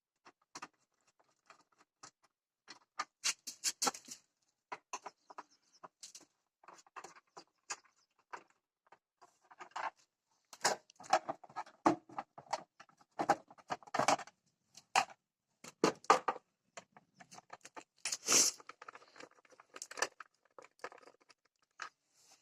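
Scattered small clicks, taps and rattles of hand work on a motorcycle's air filter box, parts and a screwdriver being handled. The taps come in irregular clusters, busier about halfway through.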